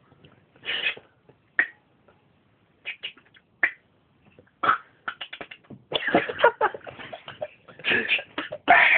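A man imitating gunfire with his mouth: scattered clicks and short breathy bursts, then a rapid run of bursts from about five seconds in.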